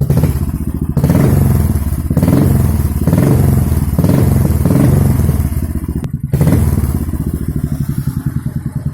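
Royal Enfield Signals motorcycle's single-cylinder engine through its exhaust, revved several times from about a second in. The revving drops off briefly at about six seconds and comes back for one more rev, then the engine settles to an even, pulsing idle near the end.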